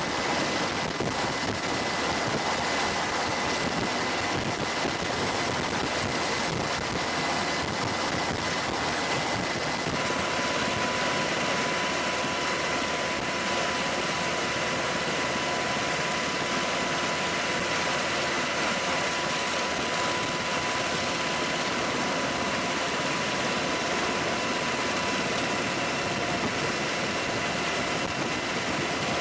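AH-64 Apache helicopter's turbine engines running steadily: a constant whine over a broad rushing noise, the whine shifting to a lower pitch about ten seconds in.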